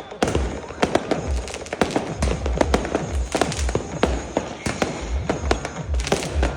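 Fireworks going off in a dense, irregular barrage of sharp bangs and crackles, several a second, with low thuds underneath.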